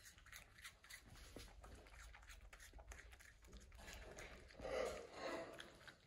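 Raccoon chewing an apple: faint crunching and clicking bites, with a short louder noise about five seconds in.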